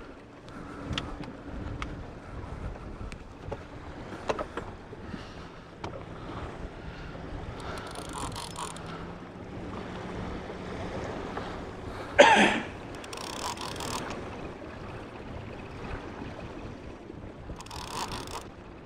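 Wind and choppy waves slapping against the hull of an open fishing boat, with scattered sharp knocks and a brief, louder burst about twelve seconds in.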